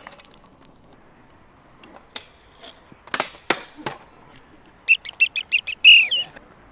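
A pea whistle blown in a quick run of short, sharp blasts, then one longer, loud blast near the end. A little earlier come a few sharp knocks of a scooter's wheels and deck hitting concrete.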